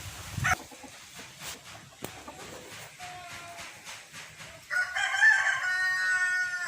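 A rooster crows, one long loud crow beginning about two-thirds of the way in, after a few soft short clucks.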